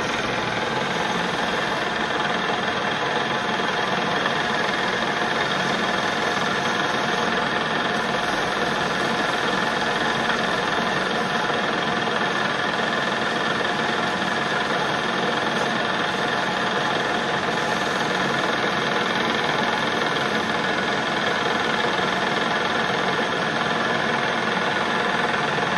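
Metal lathe running steadily, spinning a Bosch alternator rotor in its chuck while the rotor's copper slip rings are refinished.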